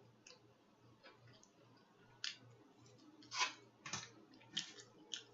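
Faint wet mouth clicks and smacks of someone eating. The first two seconds are nearly quiet, then come five or so short clicks, the loudest about three and a half seconds in.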